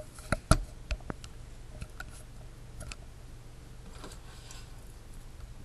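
A handful of sharp clicks and taps in the first three seconds, the loudest about half a second in, over a low steady hum.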